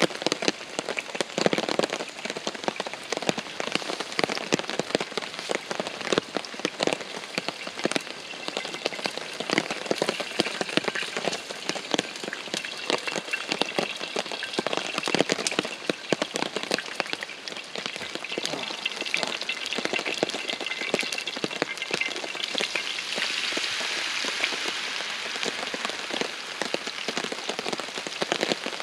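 Heavy rain on a tarp shelter: a dense, continuous patter of drops with many sharp individual hits.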